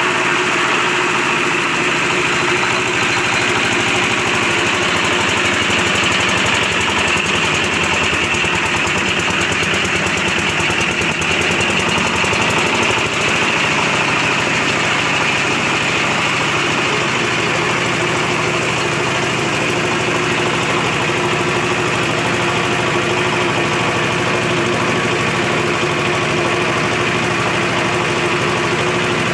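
Livestock-feed pellet machine running steadily, a loud even mechanical sound with a fast, regular chatter.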